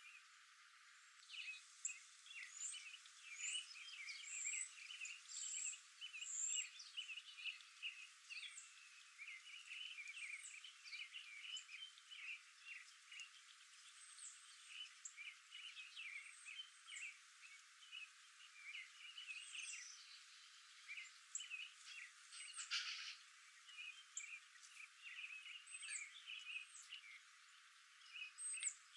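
A flock of small songbirds chirping and twittering in a dense, continuous chatter of short high calls, starting about a second in. There is one brief noisy rustle partway through.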